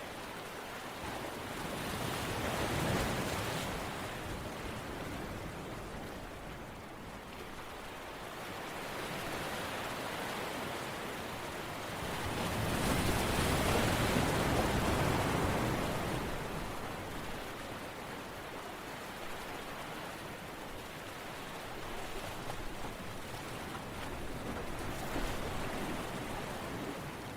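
Rushing water noise that swells and fades slowly. The biggest swells come about three seconds in and from about twelve to sixteen seconds.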